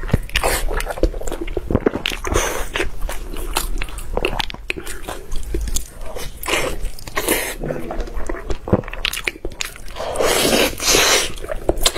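Close-miked biting and chewing of a whole blood sausage slathered in chili-oil sauce: wet, sticky mouth clicks and smacks, with several longer wet bursts, the longest near the end.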